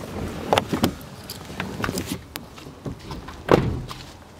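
Knocks and clicks of a van's door being opened, then the door shut with a thud about three and a half seconds in.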